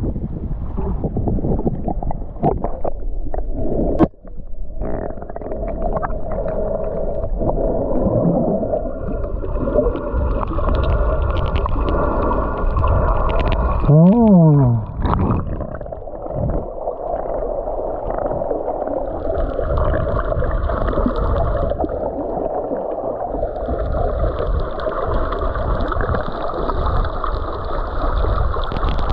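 Muffled underwater water noise picked up through an action camera's waterproof housing while snorkeling: a steady low rumble with gurgling. About halfway through there is a brief warbling tone that bends in pitch.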